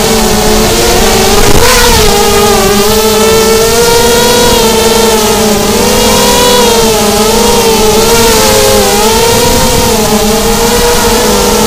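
An FPV racing miniquad's four brushless motors and propellers, heard from its onboard camera: a loud, steady buzz of several close pitches that waver up and down together as the throttle changes.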